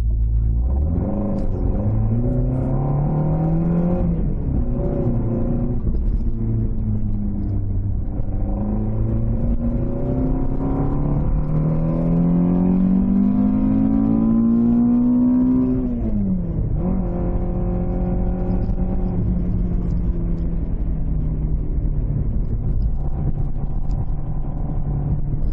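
Toyota AE86 Sprinter Trueno's 5-valve 4A-GE four-cylinder on 50 mm Weber carburettors, accelerating through the gears. The engine note climbs, breaks at each shift, and climbs again in a long pull about halfway through. It then drops sharply as the throttle closes and settles to a steady cruise.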